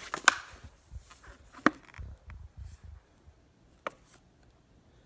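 Handling noise as a flashlight in a clear plastic blister pack is lifted out of a cardboard box: some rustling, then three sharp clicks a second or two apart, getting quieter toward the end.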